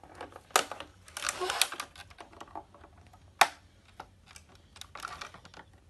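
Scissors cutting a clear plastic toy tray: irregular snips, crinkling plastic and small clicks, with the sharpest click about halfway through.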